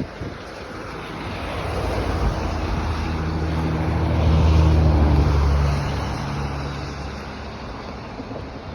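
Wind noise over the microphone, with a motor engine passing by: a low hum that grows to its loudest about halfway through and then fades away.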